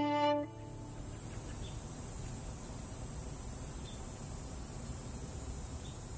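A bowed fiddle note stops about half a second in. After it comes steady summer outdoor ambience: insects shrilling at one steady high pitch over an even low hiss.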